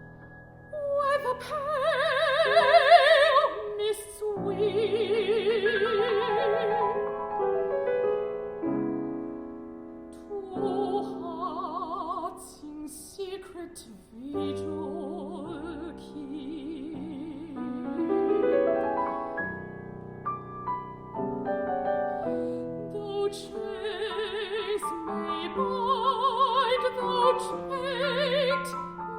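Music: a classically trained voice singing long notes with wide vibrato over piano, in an art song that draws on Peking Opera-style singing and pan-tonal harmony. The singing swells loudest about two to four seconds in and again near the end, with a softer passage in the middle.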